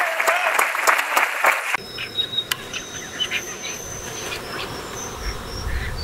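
Crowd applause and clapping with cheering voices, cut off sharply about two seconds in. It gives way to a quieter outdoor ambience of insects chirping in thin, steady high tones, with a low rumble coming in near the end.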